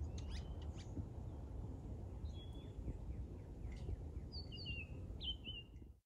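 Male summer tanager singing short, clear whistled phrases in scattered bursts, with a cluster of notes in the second half and a few faint chips, over steady low background noise.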